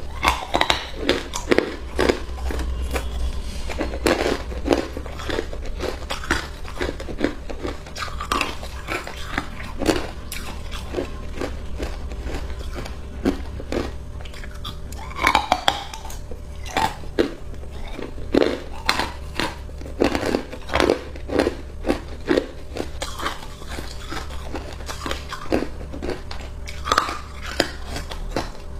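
Hard ice being bitten and chewed: a run of sharp, irregular cracks and crunches close to the microphone, over a steady low hum.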